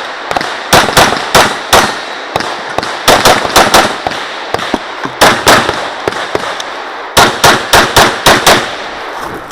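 Glock 34 9 mm pistol fired in quick strings of two to six shots, with short pauses between the strings, during a timed practical-shooting stage.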